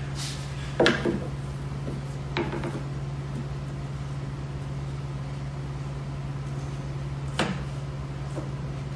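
A metal T-square straight edge being set down and shifted on a plywood sheet: a sharp knock about a second in, a lighter knock soon after and another near the end, over a steady low hum.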